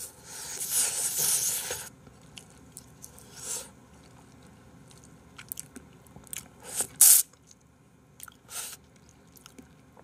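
Someone biting and chewing a frozen pink ice pop: a long crunching bite in the first two seconds, then scattered bites and chews, the loudest a sharp crunch about seven seconds in.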